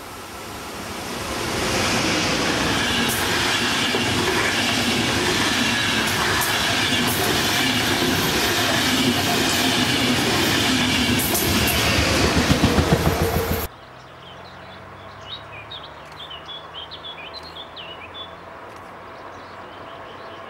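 Passenger train hauled by an ÖBB Taurus electric locomotive passing close at speed: the rush of wheels on rail swells over the first two seconds and holds, with a quick run of wheel clicks over rail joints near the end of the pass. About 14 seconds in, it cuts off suddenly to a much quieter distant train hum with bird chirps.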